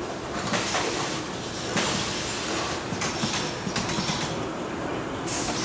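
Brewery can-line machinery running, with cans clattering and knocking against each other and against metal guides in a continuous irregular rattle.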